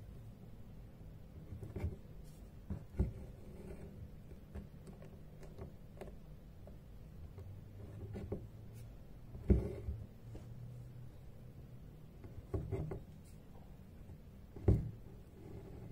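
Hand embroidery in progress: a needle and thread pierce and are drawn through taut fabric, with a few scattered soft taps and thumps as the hand works. A low steady hum runs underneath.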